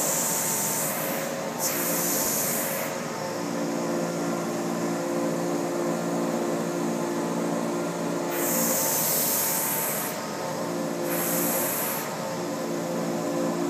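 Truck-mounted carpet-cleaning machine running with a steady drone through the vacuum hose, broken four times by loud hissing suction at the stand-on extraction tool as it pulls water out of the rug during a urine treatment: twice near the start, then about eight and eleven seconds in.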